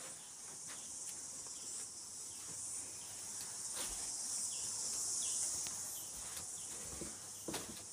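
A steady high-pitched insect-like buzz, a little louder in the middle, with soft footfalls on carpet.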